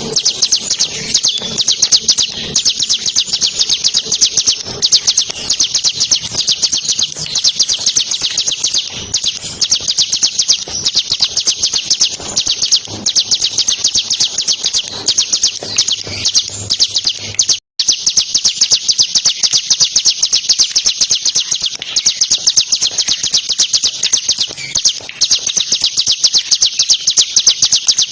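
Bar-winged prinia (ciblek) singing a fast, unbroken rattle of high notes, many to the second, in the rapid-fire "ngebren" style. The song breaks off for an instant about two-thirds of the way through.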